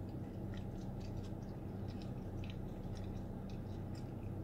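Quiet closed-mouth chewing of a pork dumpling: small irregular mouth clicks over a steady low hum inside a car's cabin.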